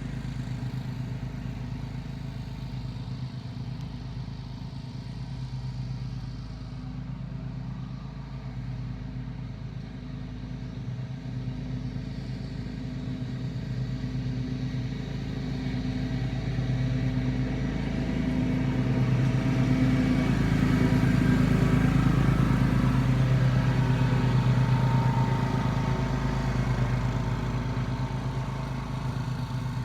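A motor engine running steadily with a low hum, growing louder for several seconds past the middle and then easing off.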